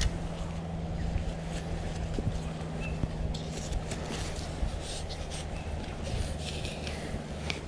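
Plastic sand pegs being pressed and knocked into hard, sandy ground, with scattered light scrapes and knocks, over a steady low hum.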